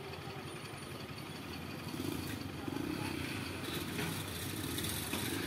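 Road traffic ambience: motorcycle engines running at idle, with people talking in the background. It gets a little louder about two seconds in.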